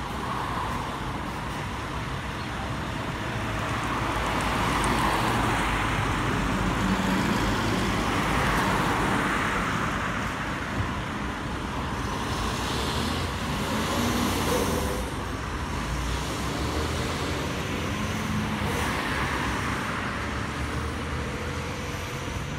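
Road traffic noise: several cars pass one after another on a multi-lane road, each swelling in tyre and engine noise and then fading, over a steady background of traffic.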